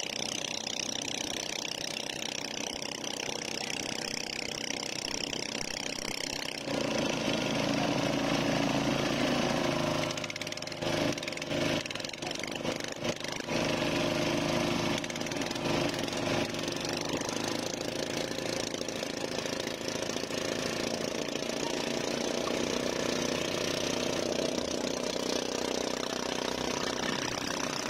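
Boat's outboard motor running steadily over water and wind hiss. About seven seconds in the engine grows louder and fuller, and for a few seconds near the middle the sound is choppy and broken before settling back to a steady run.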